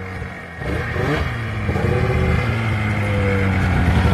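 Snowmobile engine running as the machine drives up close. It gets louder about half a second in, rises briefly in pitch, then holds a steady note.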